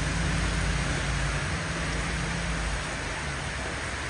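Heavy rain falling in a steady downpour. A car drives through the wet street in the first half, and its low rumble fades out about halfway through.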